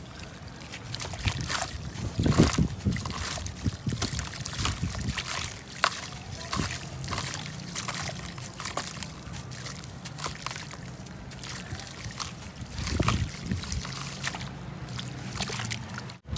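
Hands crushing a soaked sand-cement chunk in a basin of water: irregular wet crackling and crumbling with splashing and sloshing as the pieces break off into the water.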